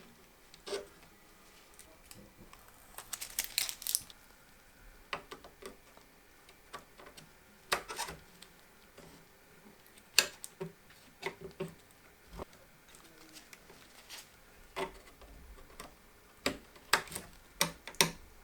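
Computer parts and their packaging being handled: scattered light clicks and taps, with a short crinkle of plastic packaging about three seconds in.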